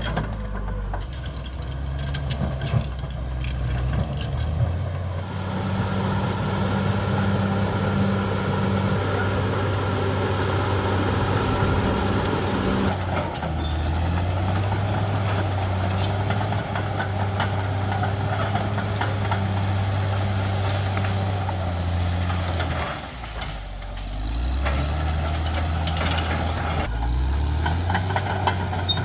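Caterpillar D6R XL bulldozer's diesel engine running under working load, its pitch shifting up and down as the load changes, dropping briefly near the end and then climbing back. Scattered sharp cracks and knocks sound over it.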